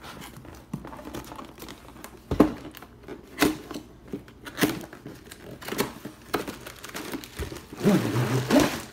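Cardboard box and plastic packaging of a mini basketball hoop set being opened and handled: crinkling and rustling, with scattered knocks as the parts are lifted out. A louder stretch of rustling comes near the end.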